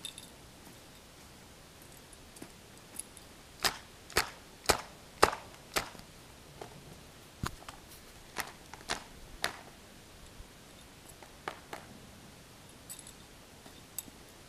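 A string of sharp, short clicks or slaps: a quick run of five about half a second apart, starting a little under four seconds in, then more scattered ones.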